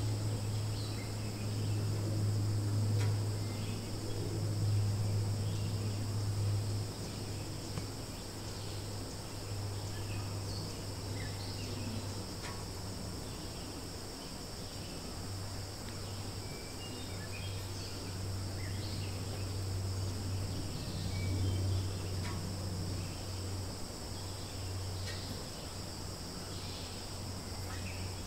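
Steady high-pitched insect chorus, with faint scattered chirps and a low rumble underneath that swells and fades.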